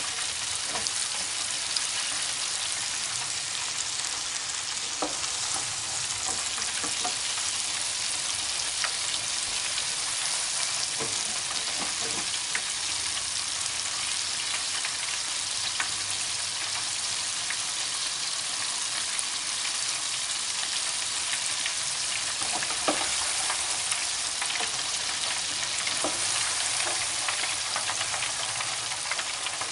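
Floured shrimp deep-frying in hot oil in an electric deep fryer, a steady sizzle, with the shrimp now cooked to colour. Occasional faint clicks come from wooden chopsticks stirring them in the fryer basket.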